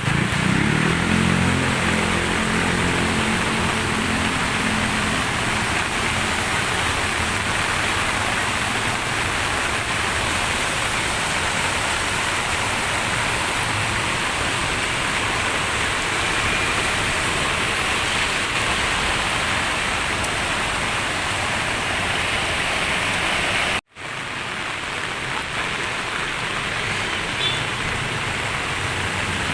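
Heavy rain and flowing floodwater make a steady rushing hiss. A low engine hum in the first few seconds fades away. The sound cuts out for an instant about 24 seconds in.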